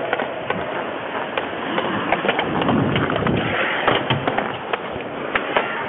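Ice hockey play heard through a player's helmet camera: a continuous scrape of skate blades on ice, broken by frequent sharp clacks of sticks and puck.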